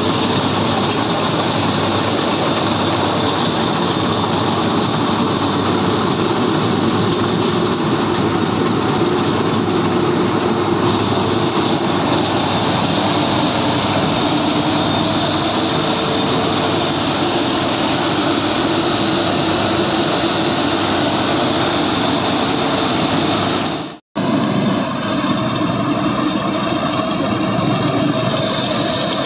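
Yanmar YH850 rice combine harvester running while harvesting, its diesel engine and threshing machinery making a loud, steady mechanical din. About three-quarters of the way through the sound cuts out for an instant, then carries on with a steadier, more even hum.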